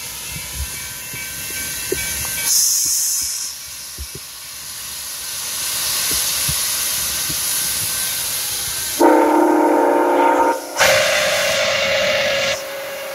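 Nickel Plate Road 765, a 2-8-4 Berkshire steam locomotive, rolling in slowly with steam hissing from its open cylinder cocks, with a louder burst of hiss about two and a half seconds in. About nine seconds in its steam whistle sounds two long blasts, followed by a fainter steady tone.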